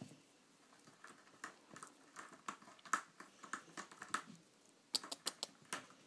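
British Shorthair kittens' paws and claws clicking and scrabbling on a wooden floor as they pounce at a wand toy, with a quick flurry of sharp taps about five seconds in.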